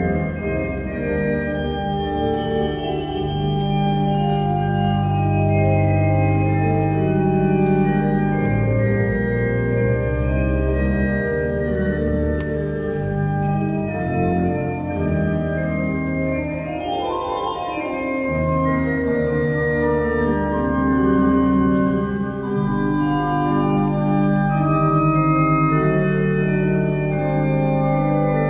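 Church organ playing held chords over deep sustained bass notes, with a quick rising run of notes about two-thirds of the way through.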